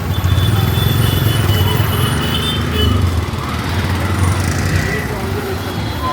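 Street traffic: motor vehicle engines, including motorcycles, running in a steady, loud wash of road noise.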